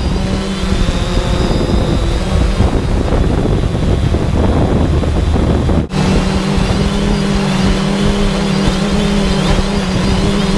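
Camera drone's electric motors and propellers in flight, heard from its own onboard camera as a steady buzz at a held pitch. The sound breaks off for a moment about six seconds in.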